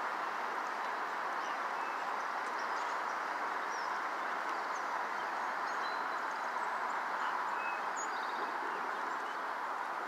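A steady rushing noise, with faint short bird chirps scattered through it.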